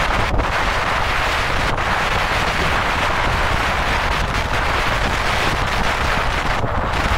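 Steady wind rush buffeting the microphone over the rumble of a car driving on the road.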